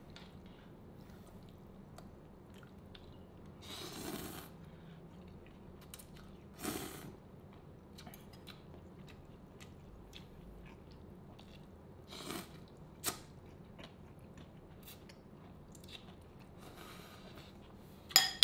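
Quiet close-up eating sounds: a few brief, soft chewing sounds several seconds apart, then near the end the loudest sound, a fork clinking against the bowl with a short ring.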